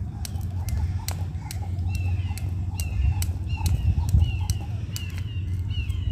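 Jump rope slapping a concrete sidewalk as someone skips, about two to three slaps a second, stopping shortly before the end. A bird chirps repeatedly in the background from about two seconds in.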